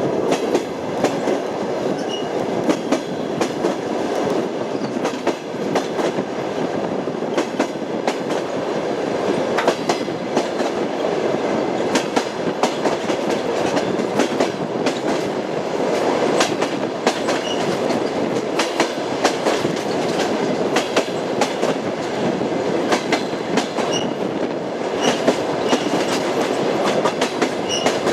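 Train wheels clattering over rail joints, a continuous clickety-clack over the steady rumble of a moving railway carriage.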